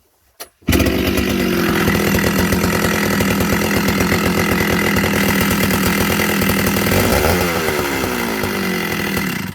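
Partner 7000 Plus chainsaw's 70cc two-stroke engine running at high revs, after a small click just before it starts. Its speed drops off about seven seconds in. Freshly repaired, it is running well.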